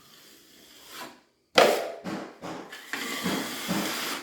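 Metal drywall knife scraping and spreading joint compound: a few short strokes starting about a second and a half in, then a longer continuous scrape.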